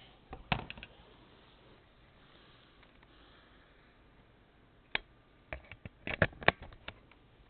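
Camera being handled and set down: a few sharp knocks and clicks, one about half a second in, another about five seconds in, and a quick cluster of them near the end, over quiet room tone.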